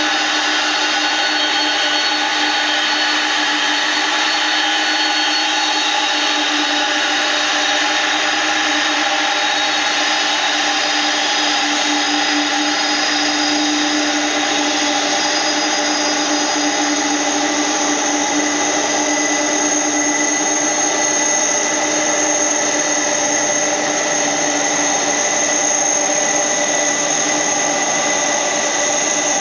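Pratt & Whitney PW4000-series turbofans of a McDonnell Douglas MD-11 running at taxi power: a steady, hard mid-range drone with a high whine above it that grows stronger about halfway through.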